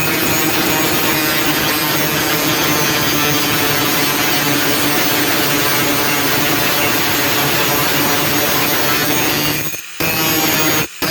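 Electric grinder running under load, grinding the steel of an old saw blade into a knife blank, with a steady motor hum beneath the grinding noise. The sound cuts out for a moment twice near the end.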